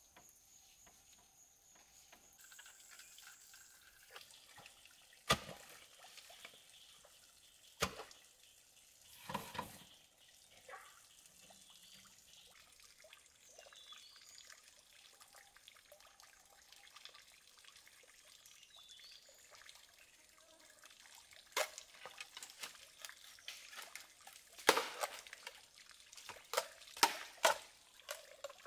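Water trickling and dribbling, with a few sharp knocks and clatters, most of them bunched together near the end.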